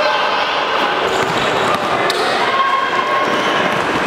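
Basketball game sounds in a large gym: the ball bouncing on the wooden court and players and spectators calling out, all echoing in the hall.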